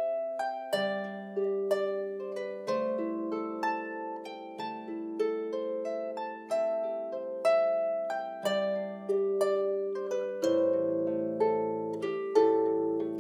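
Celtic harp playing a slow melody of single plucked notes over lower notes left to ring, each note starting sharply and fading away.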